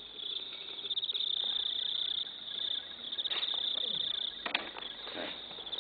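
Crickets trilling steadily in high, fast-pulsing runs with short pauses. A few short sharp sounds stand out, the loudest about four and a half seconds in.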